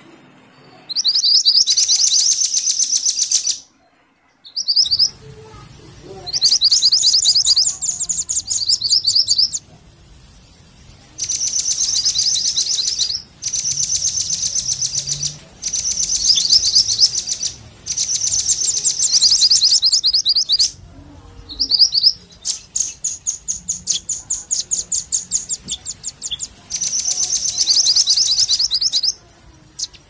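A small songbird calls in repeated bursts of rapid, high-pitched chattering chirps, each burst lasting two to four seconds, with short pauses between them; this is a bird-lure (pikat) call.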